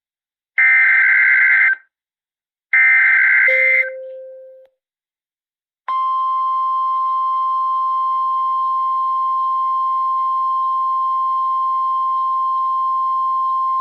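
An Emergency Alert System SAME header: two bursts of screeching two-tone digital data about a second apart, the last of three. A short gap follows, then from about six seconds in the steady single-pitch 1050 Hz NOAA Weather Radio warning alarm tone, which marks the start of a new warning message.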